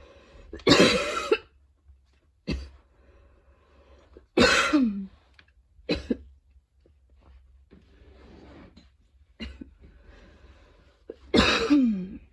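A woman's wheezy coughing fit: six coughs a second or more apart, three of them loud and drawn out, with faint wheezing breaths between them. The uploader puts the fit down to a run, an allergy to freshly cut grass and tiredness.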